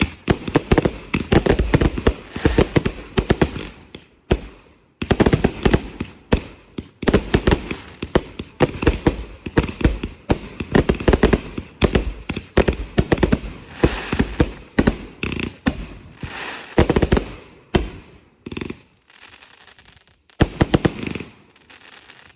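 Consumer fireworks going off in rapid, dense volleys of loud crackling bangs, with a few short lulls, one about four seconds in and a longer one near the end.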